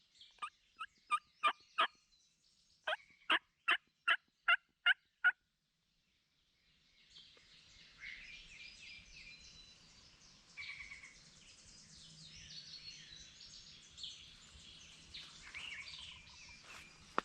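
Two runs of short, loud, evenly spaced calls in the first five seconds, then faint songbirds, and a distant wild turkey gobble near the end.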